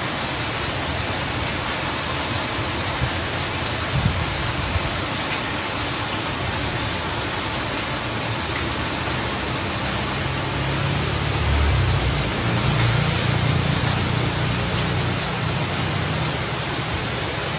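Heavy rain falling, a steady even hiss, with a low rumble swelling for a few seconds about two-thirds of the way through.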